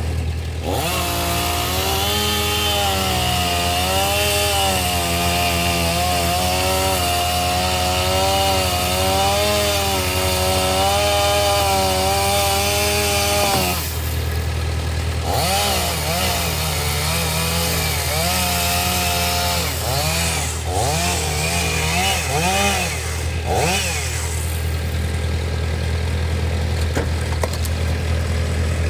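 Stihl 500i two-stroke chainsaw running at high speed and cutting wood, its pitch wavering up and down with the load and swinging more widely from about halfway. A steady low drone runs underneath.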